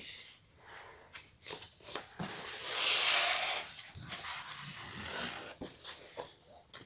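Paper rustling and sliding as a large softcover colouring book is handled and turned over, its cover and pages brushing against each other and the desk, with a longer swish about halfway through and a few small taps.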